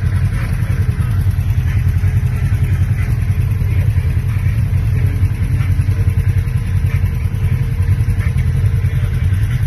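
Off-road vehicle engines, from a side-by-side UTV and a four-wheeler ATV, running with a steady low rumble.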